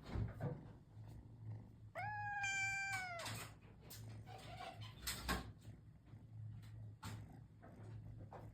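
A Ragamuffin cat meows once, a single drawn-out meow of about a second that holds its pitch and then drops at the end. A few scattered light clicks and knocks are heard around it.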